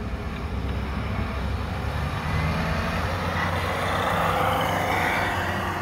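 Imex HG-P408 1/10-scale RC Humvee truck driving fast across asphalt. Its motor and tyre noise grow louder as it comes close about four seconds in, then ease slightly.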